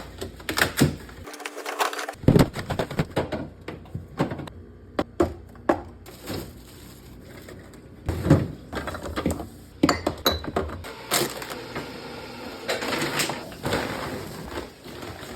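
Irregular knocks, clicks and clatter of containers and food items being set into a fridge, with some rustling of packaging between the knocks.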